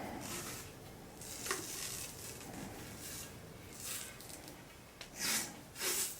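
Cloth hockey tape being pulled off the roll and wound around a hockey stick's shaft, a series of short peeling, rasping pulls, the loudest two near the end.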